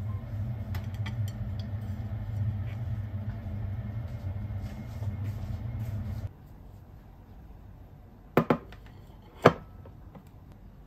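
A steady low machine hum that cuts off about six seconds in, then two sharp clinks of ceramic tableware being set down on a table, about a second apart.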